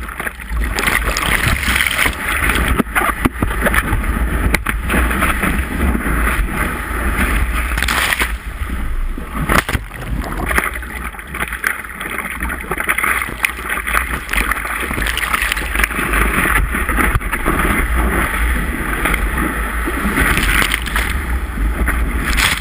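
Seawater splashing and sloshing around a surfboard as the surfer paddles with his arms, water slapping the camera on the board's nose, with a steady low rumble of wind on the microphone. Near the end the board runs through breaking whitewater.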